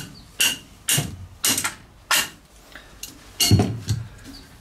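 A run of sharp, ringing metal-on-metal taps, about two a second with a pause in the middle, on the low-pressure crosshead of a 1909 Doty compound steam engine as the wrist-pin wedge is worked free. The two knocks near the end are the loudest and heavier.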